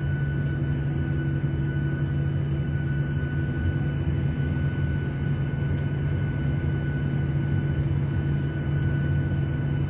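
Airliner cabin noise: the steady drone of the jet engines and airflow heard from inside the cabin, a deep even rumble with a few faint steady hum tones over it.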